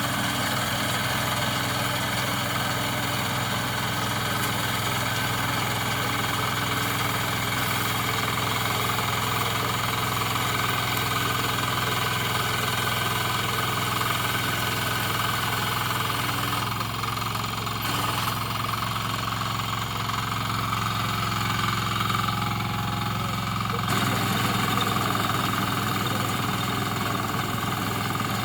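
Small engine of a paddy reaper machine running steadily, with sudden shifts in its tone about 17 seconds in and again near 24 seconds.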